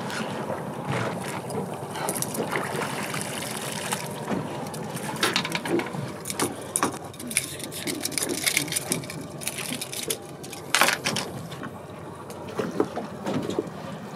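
Water sloshing and splashing at a boat's hull, with scattered knocks and rattles as a giant trevally is handled over the gunwale and unhooked from a jig. The loudest knock comes about eleven seconds in.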